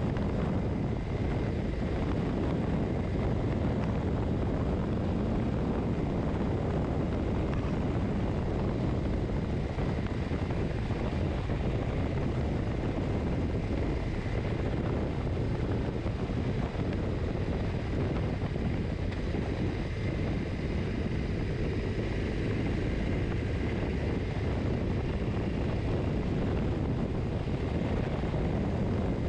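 Motorcycle cruising at a steady speed: a constant engine drone mixed with wind rushing past the fairing and microphone, with a faint steady high whine.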